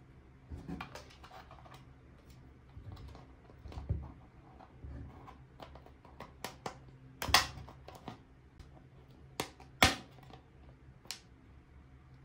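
Small mini kitchen toy pieces being handled: scattered light clicks and taps, with two sharper knocks, one about seven seconds in and one about ten seconds in.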